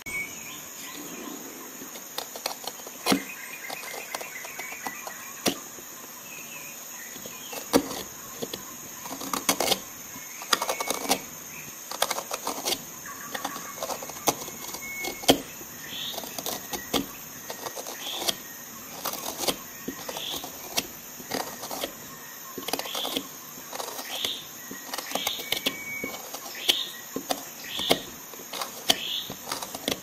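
Small gouge of a Flexcut Carvin' Jack folding carving tool cutting into a weathered wood block: a string of short scraping cuts and sharp clicks as chips lift away, settling into about one stroke a second in the second half.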